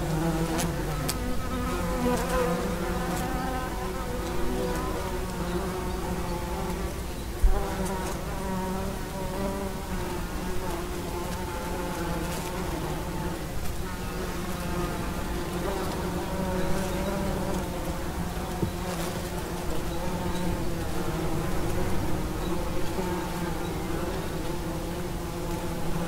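A swarm of wasps buzzing continuously, many wing-tones wavering in pitch at once, with a single sharp thump about seven and a half seconds in.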